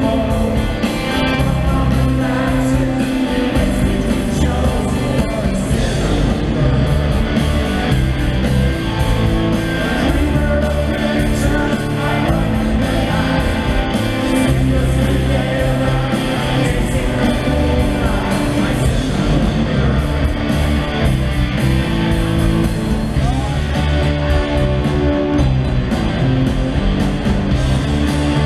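Rock band playing live: electric guitars, bass guitar and drum kit, with a singing voice, heard from the audience in an arena.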